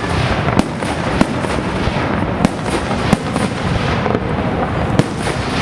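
Fireworks bursting: about half a dozen sharp bangs at irregular intervals, over a loud steady rushing noise.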